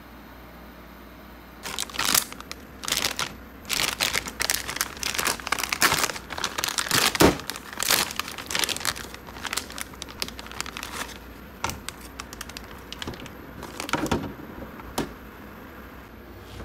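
Crinkling as something is handled and crumpled by hand, in a dense run of sharp crackles starting about a second and a half in, thinning to a few scattered crackles in the last few seconds.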